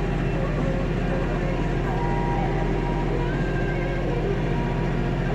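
Compact tractor's diesel engine running steadily.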